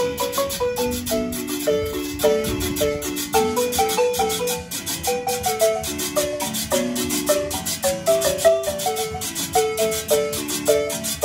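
A live marimba band playing: quick mallet-struck marimba notes carry the melody over strummed acoustic guitars, with a metal tube shaker keeping a steady, even chuck above them.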